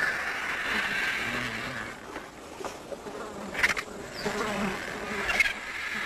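Flies buzzing around a carcass, a hazy buzz that is strongest at the start and swells again near the end. Two short sharp clicks fall in between.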